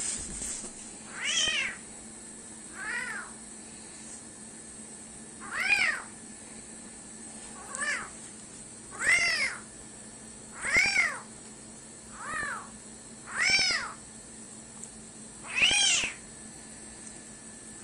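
Small kitten mewing repeatedly: about nine short, high-pitched mews a second or two apart, each rising and then falling in pitch.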